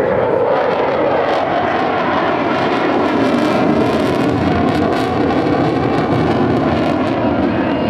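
F-16 Fighting Falcon's jet engine running loud and steady as the fighter flies its display routine.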